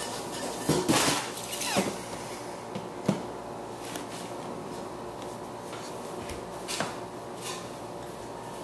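Hard plastic toy parts and packaging being handled: a few irregular clicks and knocks, the loudest about one second in and about three seconds in, over a faint steady hum.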